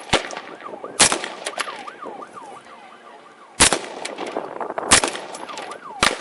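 Gunshots: about five sharp cracks at uneven intervals, about a second apart early on and then two to three seconds apart, over a police siren yelping in the background.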